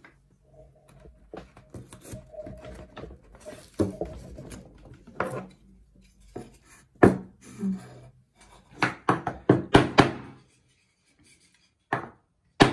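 Thin pine beehive frame parts being knocked and pressed into their slots, then tapped with a small hammer: scraping and handling, then a series of sharp wooden knocks with a quick run of taps about three-quarters of the way through and two more near the end.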